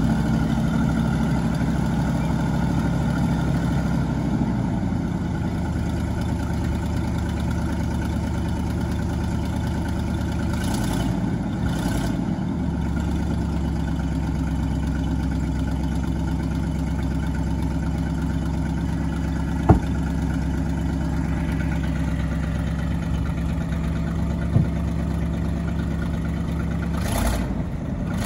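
1969 Chevrolet C60 truck engine running steadily while the hydraulic hoist raises and then lowers its wooden dump box. The engine note changes about four seconds in and again around twelve seconds, and two sharp clicks come near twenty and twenty-five seconds in.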